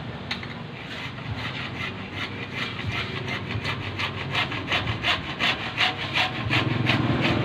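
Hand saw cutting through blue plastic water pipe in quick, even back-and-forth strokes, about three a second, growing louder toward the end.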